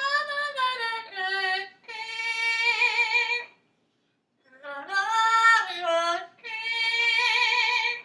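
Green parrot singing opera-style in a high, quavering voice with a strong vibrato, in sung phrases broken by short pauses.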